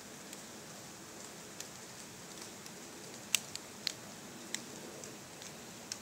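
Dry autumn leaves falling and landing on leaf litter and branches: a scattering of light, sharp ticks and pats, most of them around the middle, over a steady soft hiss.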